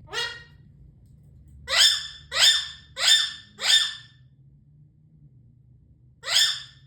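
A voice making short, high, squeaky cries, each falling in pitch. There is one near the start, then four in quick succession about 0.6 s apart, then two more near the end.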